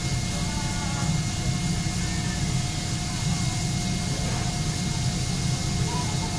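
Steady mechanical rumble and hiss from trains standing at a station platform, with faint distant voices.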